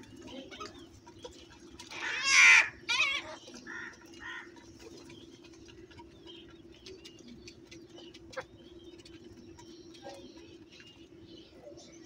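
House crows cawing: a loud, harsh caw about two seconds in, followed by a few shorter calls. After that there are only faint scattered ticks of beaks pecking at grain in a dish.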